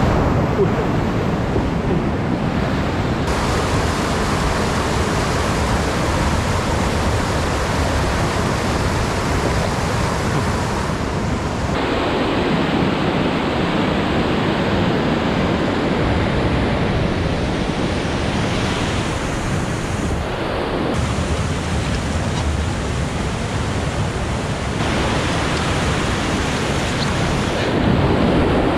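Whitewater rapids rushing over rocks: a loud, steady noise of moving water that shifts abruptly in tone several times.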